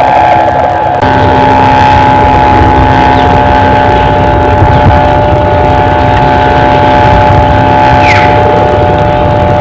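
Kite hummer (sendaren) on a flying kite droning steadily with several held tones, like a motor or a snore, over a low rumble. Its pitch shifts slightly about a second in.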